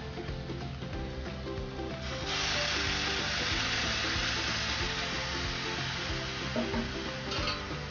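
Hot water poured from a steel vessel into a steel pot of rice with ghee, cumin seeds and whole spices. It makes a steady rushing hiss that starts about two seconds in and cuts off sharply about five seconds later.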